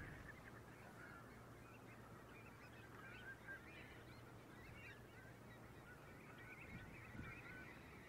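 A large flock of coastal birds calling faintly, many short high calls overlapping into a continuous chorus, over a low steady hum.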